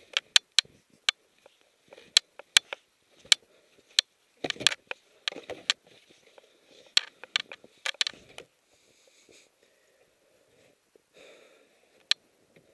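Crunches and sharp, irregular knocks of deep snow being dug away, with hard breathing close to the microphone.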